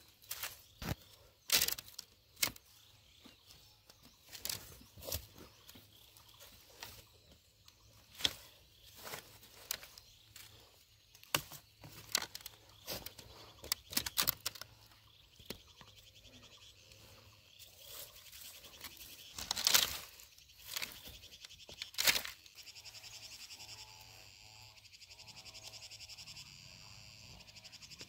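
Rustling, creaking and irregular sharp snaps of a vine binding being wrapped and yanked tight around a bundle of freshly cut wooden fence stakes, with the poles knocking and scraping; the loudest snaps come near the end of the binding. After that a steady, rapidly pulsing chirring chorus of small animals takes over.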